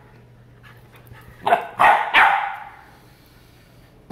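A white Labrador puppy barks three times in quick succession about halfway through. Each short, sharp bark rings briefly off the hard tile floor.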